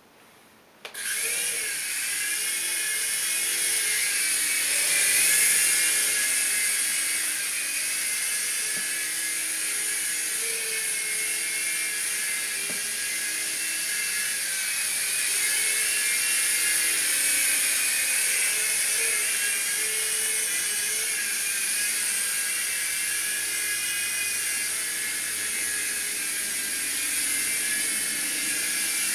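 Falcon X 3-channel RC helicopter's motors and rotors whirring in flight. The sound starts suddenly about a second in and holds steady, its pitch wavering up and down.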